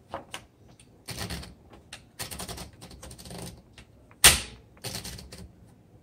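A sheet of paper being loaded into a 1973 Facit-Odhner manual typewriter: several short stretches of paper rustling and mechanical clicking as the sheet is rolled into the platen, with one sharp, loud clack about four seconds in.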